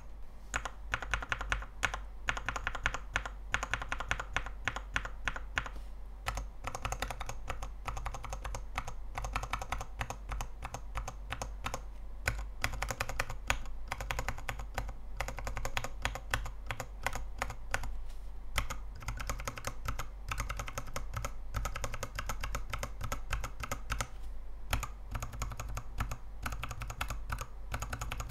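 Mechanical keyboard switches on a KBDfans 72-switch tester (acrylic base, dye-sub XDA keycaps) being pressed in rapid runs of clacks. There are short breaks about every six seconds, as the typing moves from one switch to the next.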